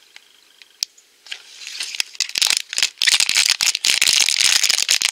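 Dense crinkling of a small foil blind bag being handled and opened by hand. It starts about a second and a half in and grows loud near the end.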